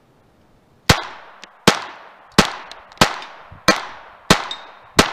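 Glock 44 .22 LR pistol firing Federal AutoMatch rounds in steady single shots, seven of them about two thirds of a second apart, each with a short ringing tail. The even pace shows the action cycling without a stoppage.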